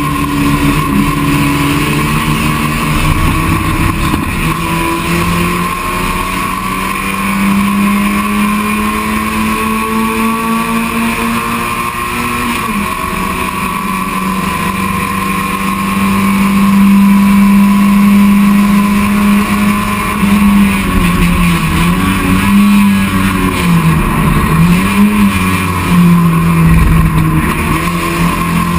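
Touring race car's engine, heard from inside the stripped cabin, running hard at high revs. Its pitch climbs in steps through the gears, holds high for several seconds past the middle, then drops and picks up again several times near the end.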